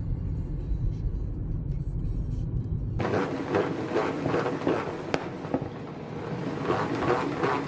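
Low steady rumble of a car driving, heard from inside the cabin. About three seconds in it cuts to a run of crisp, crackly rustles from hands working a salad spinner full of washed salad greens.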